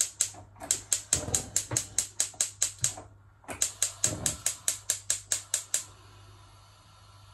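Gas hob's spark igniter clicking rapidly, about five clicks a second, as a burner is lit. The clicking comes in two runs with a short break about three seconds in, then stops, leaving a faint steady hiss.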